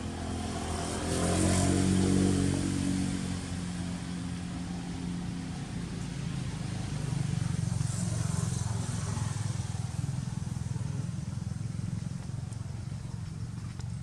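Motor vehicles passing on a road. One engine swells and fades, loudest about two seconds in, and another engine hum builds again from about seven to ten seconds.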